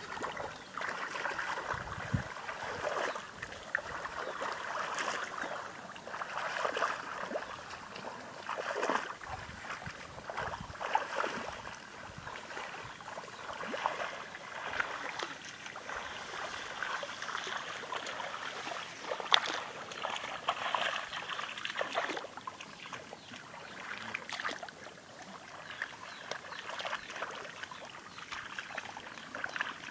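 Shallow muddy water sloshing and splashing irregularly as hands grope through it and legs wade, with no steady rhythm.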